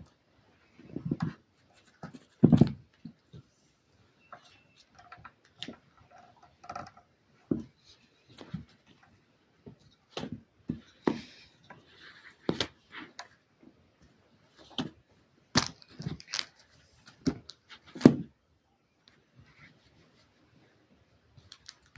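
Savannah kitten at play with a hand and toys on a rug: scattered, irregular soft thumps, taps and rustles, with a few heavier thumps.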